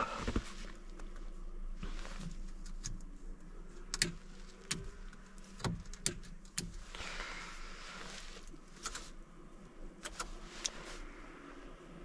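Scattered light clicks and knocks with some rustling from handling things in a truck cab, over a faint steady low hum.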